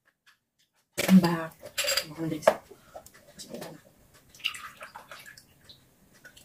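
Milk poured from a carton into a glass of ice, a liquid pour for about a second past the middle, among knocks and clinks of tableware.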